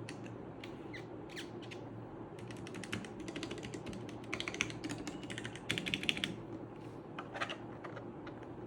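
Redragon K530 Pro mechanical keyboard keys clicking under rapid typing: a few scattered key presses, then a quick run of keystrokes lasting a few seconds, then a few more.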